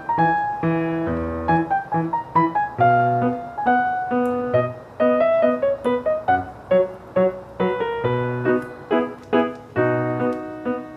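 Background piano music: a light, quick melody of struck notes.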